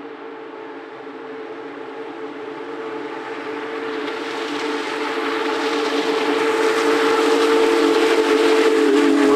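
Union Pacific Big Boy 4014's steam whistle blowing one long chord, growing steadily louder as the locomotive approaches, with the rushing noise of the train building underneath. The chord sags in pitch near the end.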